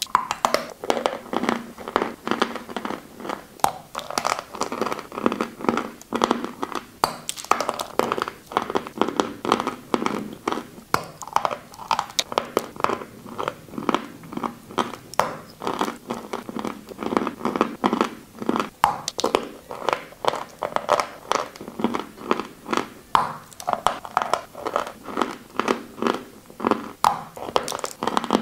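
Close-miked biting and chewing of a brittle white chalk block: a dense, unbroken run of dry crunches and crackles, several a second.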